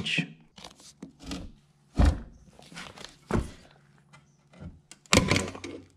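Metal knocks and clicks from a socket ratchet on the steel spindle-housing bolts of a riding mower deck, with three louder thunks about two, three and five seconds in.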